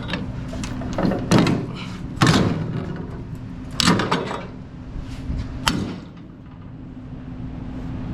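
Heavy securement chain clanking against the flatbed and the cable reels as it is handled: four or five sharp metallic clanks and thuds a second or two apart, over a steady low hum.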